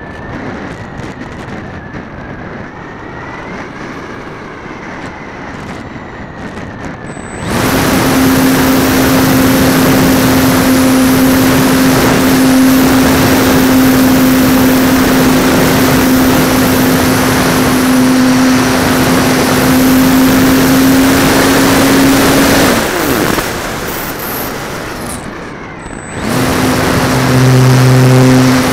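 A model airplane's motor and propeller, heard from a camera mounted on the plane. At first there is only wind rush with the motor off. About seven seconds in the motor comes on and runs at a steady, loud pitch. About 23 seconds in it cuts back to wind rush, then comes on again about 26 seconds in.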